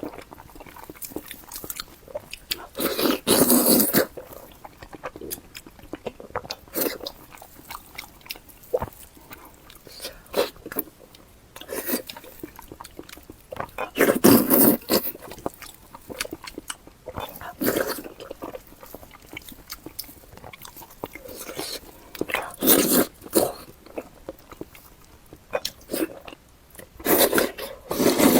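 Close-miked chewing and biting of food, with a few loud bites standing out against quieter, clicky chewing in between.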